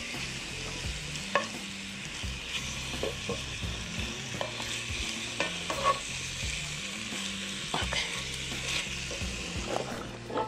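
Beef pieces frying in a skillet, sizzling steadily, with occasional short clicks and scrapes of tongs against the pan as the meat is turned.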